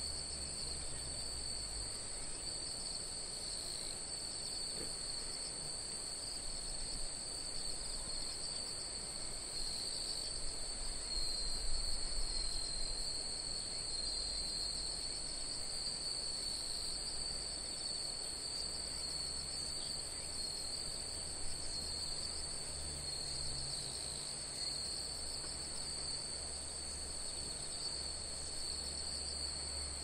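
Steady high-pitched chorus of insects chirring without a break, over a low rumble of wind on the microphone that swells briefly around the middle.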